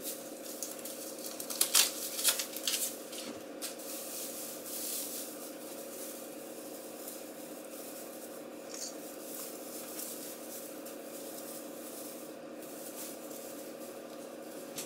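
Red foil tinsel garland rustling and crinkling as it is handled and draped over the branches of an artificial Christmas tree, with a few louder crinkles about two seconds in, over a steady hum.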